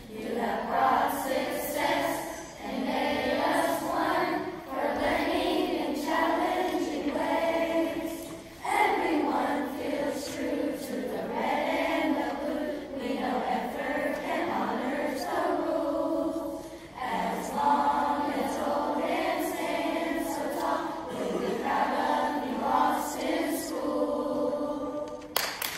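A group of voices singing a song together in phrases, with short pauses between lines.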